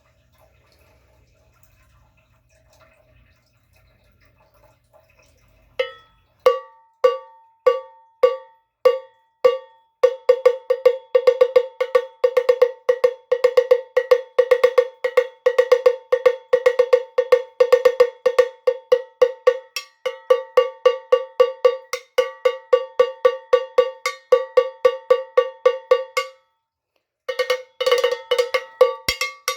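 Cowbell played on its own: slow single strikes at about two a second at first, then a fast, steady rhythm of several strikes a second that breaks off for about a second near the end and starts again.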